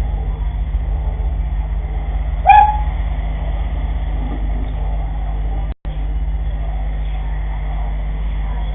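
A motor vehicle engine runs with a steady low rumble. About two and a half seconds in, a dog barks once, short and loud. Just before six seconds the sound cuts out for an instant.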